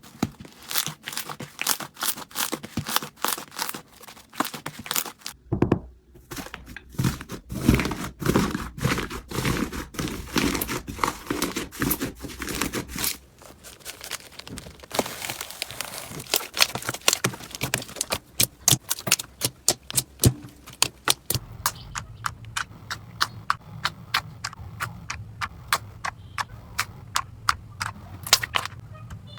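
Slime being squeezed, pressed and poked by hand, giving runs of sharp clicks, pops and crackles. The character changes several times, about 5, 13 and 21 seconds in, with a low steady hum under the last stretch.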